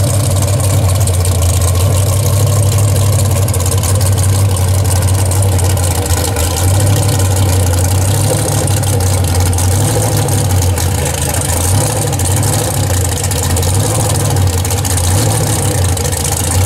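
Mud-drag truck's small-block Chevy V8 idling loudly and steadily at the start line, its lumpy low note wavering a little.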